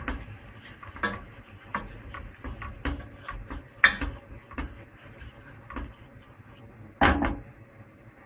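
Wooden spoon stirring in a stainless steel pot of onion sauce, knocking and scraping against the pot in irregular clicks, with a heavier knock near the end as the spoon is set down on a plate.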